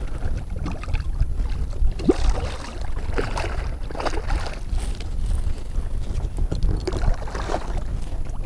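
Wind rumbling on the microphone, with water splashing and lapping around a kayak as a hooked redfish fights beside it.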